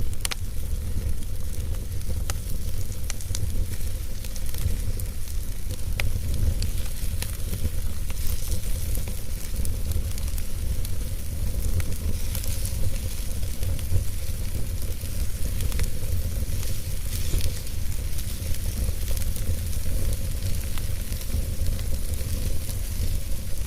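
Wood fire burning in a fireplace: a steady low rumble of the flames with a hiss and scattered sharp crackles and pops.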